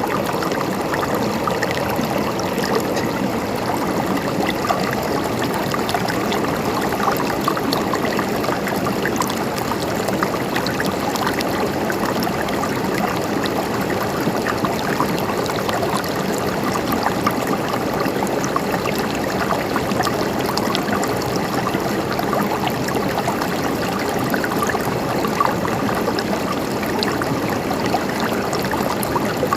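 River water flowing and babbling over rocks: a steady rushing with many small splashes and gurgles.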